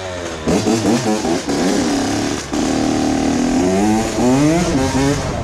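Honda CR80 80cc two-stroke dirt bike engine revving as it is ridden, its pitch climbing and falling several times, with a brief dip about two and a half seconds in before it pulls up again.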